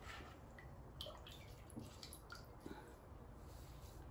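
Near silence: a few faint wet drips and small clicks over a low steady hum.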